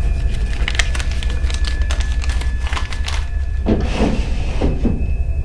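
Wooden dresser drawer being handled and pulled open: a run of clicks and knocks, then the rough sliding of the drawer about four seconds in, over a steady low hum.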